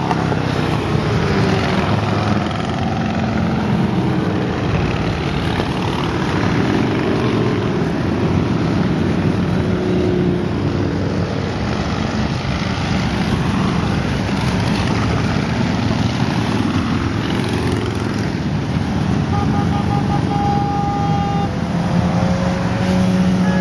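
A long column of cruiser motorcycles passing one after another, the engines of many bikes blending into a steady, continuous rumble. A brief high tone, pulsed and then held, sounds about twenty seconds in.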